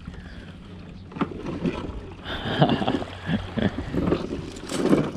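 Irregular knocks, shuffling and small splashes from a plastic sit-on-top kayak and wading boots in shallow water as a person clambers out of the kayak at the shoreline.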